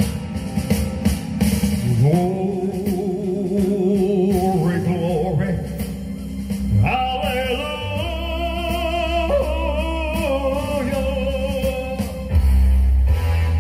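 Live stage music with singing over a backing track: one long held vocal note with vibrato, then a higher one from about seven seconds in, with a heavier deep bass coming in near the end.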